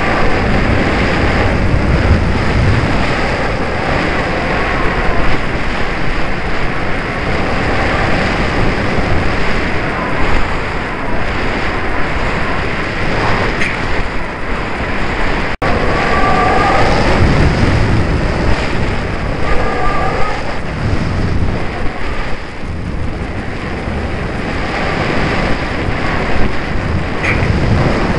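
Airflow rushing and buffeting over the microphone of a camera carried on a model aircraft in flight, a loud, even rumble and hiss, with a brief break about halfway through.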